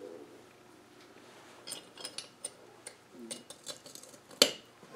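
Small metal parts of a steering box clicking and tapping as they are handled and fitted into the housing: a run of light ticks from about a second and a half in, then one sharp metallic knock near the end.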